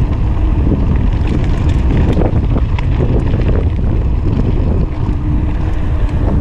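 Wind buffeting a GoPro Hero5 Session's microphone as a mountain bike rolls fast down a gravel road, a steady heavy rumble with frequent short clicks and rattles from the tyres and bike over loose stones.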